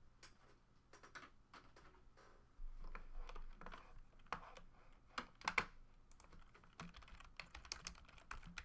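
Faint, irregular clicking of typing on a computer keyboard, with a short burst of louder clicks about five and a half seconds in.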